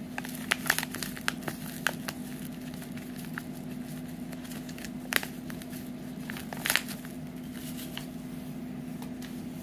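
A plastic seasoning packet crinkling as it is tipped and shaken over a salad bowl, with scattered crackles and a few sharper crinkles. A steady low hum runs underneath.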